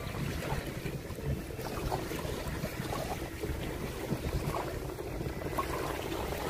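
Small waves lapping and washing over a pebble beach, with wind rumbling on the microphone.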